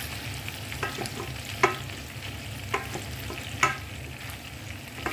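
Turkey necks sizzling as they fry in a pan, with four sharp clinks against the pan; the second and fourth are the loudest.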